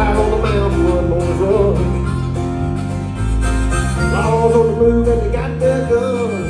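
Live country-Americana band playing: strummed acoustic guitars and electric bass under a wavering, bending lead line from a harmonica played cupped against a vocal microphone.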